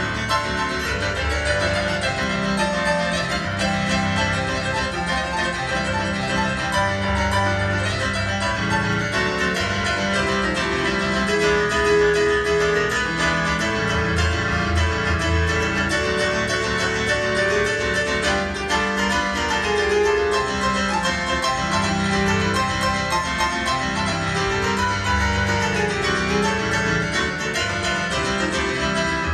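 Solo piano played live on a stage piano: a flowing melody over low bass notes, without pause.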